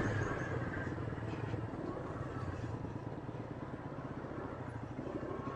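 Small motorcycle engine running steadily at low speed, with an even, low pulsing note.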